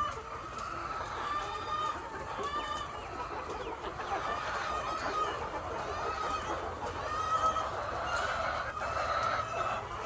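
A flock of egg-laying chickens clucking and calling over one another, many short calls overlapping without pause.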